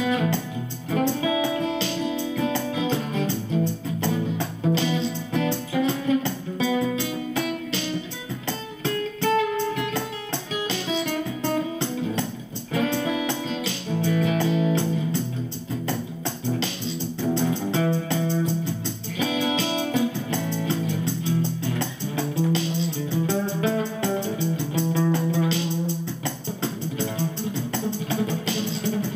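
Acoustic guitar played through a Bonsai overdrive pedal into a small ten-watt Cube-10 amp on its clean setting, picking a melody over sustained low notes.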